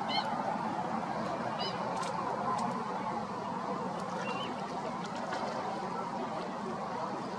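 Short, goose-like honking calls of greater flamingos: two within the first two seconds and a thinner, higher one past four seconds, over a steady background hiss.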